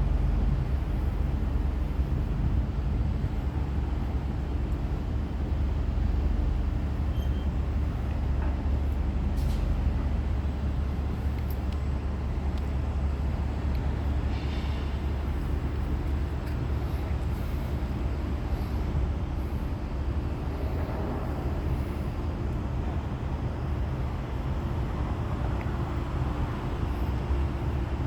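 Heavy construction equipment's engine running steadily with a deep, even rumble and a faint steady hum above it.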